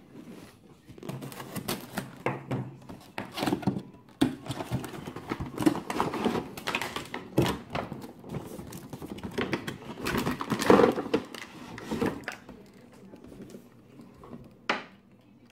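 Cardboard retail box being handled on a table: irregular scraping, rubbing and knocking of the cardboard as it is slid and turned. The handling quietens near the end, and a single sharp knock follows.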